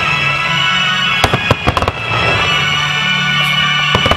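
Aerial fireworks shells bursting: a quick run of four sharp bangs a little over a second in and another near the end, over steady music with sustained tones that the display is synchronized to.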